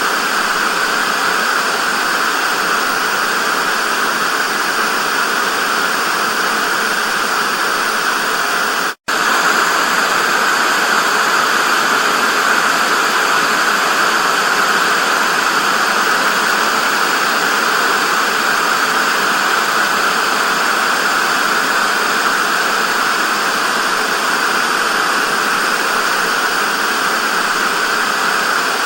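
Television static: a steady, loud hiss of white noise. It cuts out to silence for a split second about nine seconds in, then resumes.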